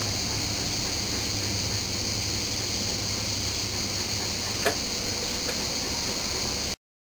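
Steady background hiss with a low hum: room tone and recording noise. There is one faint click about four and a half seconds in, and the sound cuts off abruptly near the end.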